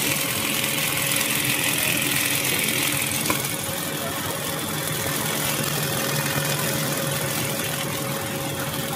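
Puffed-snack production line machinery running steadily: a constant mechanical hum with a held drone and a broad hiss. A stronger hiss comes in the first three seconds, and there is a single click a little over three seconds in.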